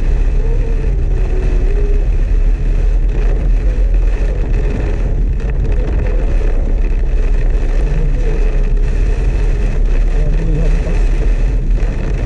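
Inside a Suzuki S-Presso's cabin driving in heavy rain: rain drumming on the roof and windshield over a steady low rumble of engine and tyres on the wet road.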